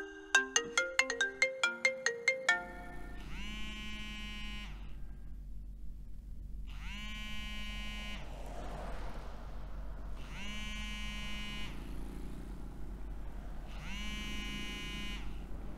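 A mobile phone ringtone: a quick run of about a dozen bright, plucked-sounding notes. Then a phone rings in long repeated rings, each a little over a second, about one every three and a half seconds, over the steady low hum of a car cabin.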